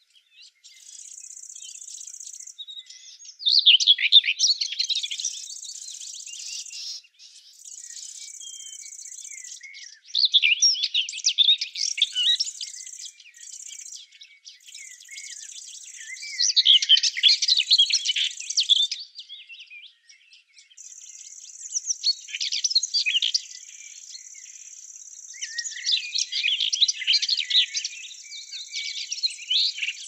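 Songbirds singing in repeated bouts of quick chirps and trills, with short pauses between bouts. Underneath runs a high, thin steady buzz that comes and goes in stretches of a few seconds.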